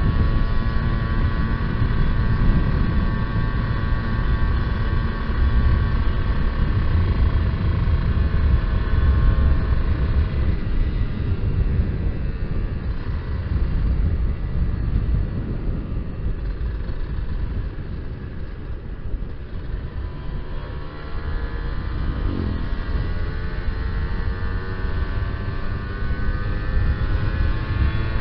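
Kawasaki Ninja R two-stroke motorcycle engine running while being ridden, with wind rushing on the microphone. The engine note fades back in the middle, then climbs steadily again in the last several seconds as the bike speeds up.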